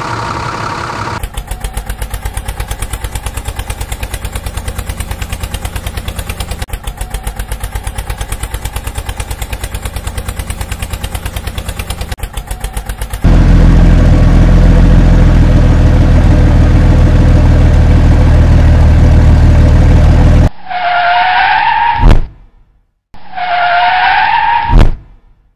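Dubbed-in vehicle engine sound effects: a fast, even putt-putt of an engine running, then a louder, deeper steady engine rumble, then two short high wavering tones, each ending in a sharp click.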